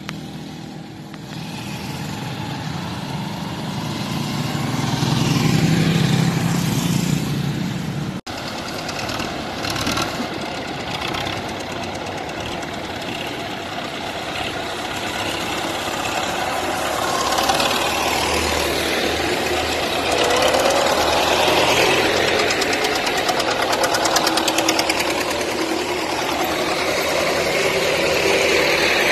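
Farm tractors towing disc harrows and motorcycles running as they drive past, the engine sound swelling and fading as they go by. The sound breaks off briefly about eight seconds in.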